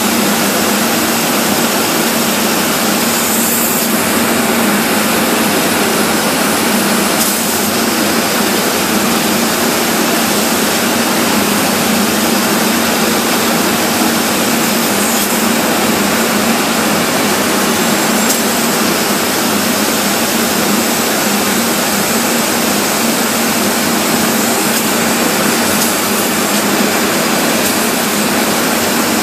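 Spray polyurethane foam rig running with a steady, loud rushing hiss and a low hum underneath, as the spray gun jets foam into a wall cavity.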